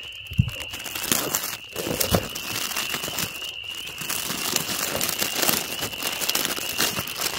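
Clear plastic packaging crinkling and rustling as a bagged fabric blanket is handled and moved around in a cardboard box, with two soft thumps in the first couple of seconds. A steady high-pitched frog chorus carries on behind.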